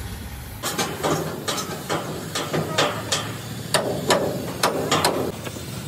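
About a dozen irregular hammer blows on steel tank plate, a few of them ringing briefly, starting about half a second in.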